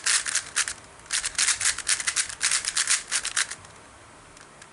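Plastic Rubik's magnetic speedcube being turned quickly by hand: a rapid run of clicks and clacks as the layers snap round, in two spells that stop about three and a half seconds in.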